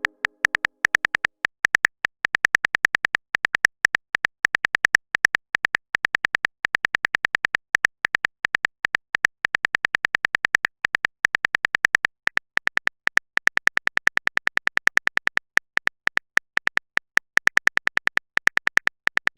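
Rapid series of short, high electronic blips in quick runs with brief pauses, like a typing sound effect as dialogue text appears letter by letter.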